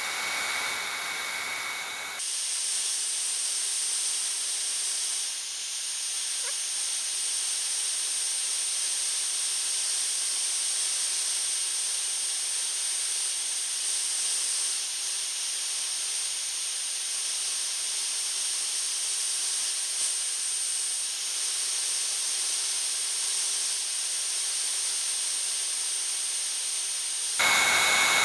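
Heat gun blowing steadily: an airy hiss with a faint high whine. The sound changes abruptly about two seconds in and again near the end, where it gets louder.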